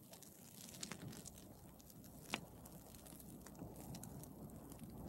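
Faint crackling of a wildfire burning through forest undergrowth, with scattered sharp pops; the loudest pop comes about two and a half seconds in.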